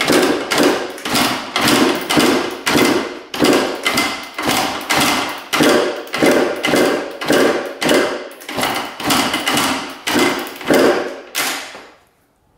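A 1998 Kawasaki KX125 two-stroke dirt bike being kicked over again and again, a fast run of clattering kickstart strokes about two a second that stops near the end. The engine never fires, not even a pop: a no-start.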